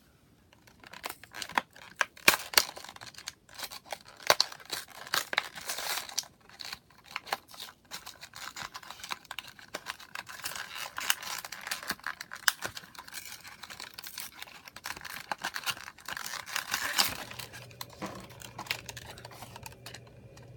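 A die-cast toy car's blister pack being torn open by hand: the cardboard card ripping and the clear plastic bubble crinkling and crackling in many short, irregular bursts.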